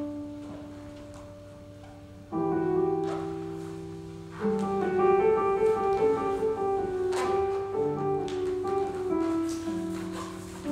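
Slow piano music: held chords, with a new chord entering about two seconds in and a busier run of notes through the middle.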